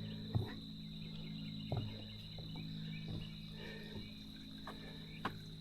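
Faint woodland ambience with a steady, high insect buzz and a few short, soft knocks.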